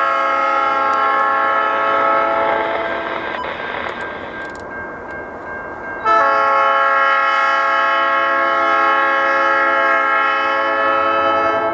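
Nathan Airchime P3 three-chime horn on a CN SD40-2W diesel locomotive blowing for a grade crossing. One blast of about three seconds fades away, then after a short gap a longer, louder blast starts about six seconds in and holds.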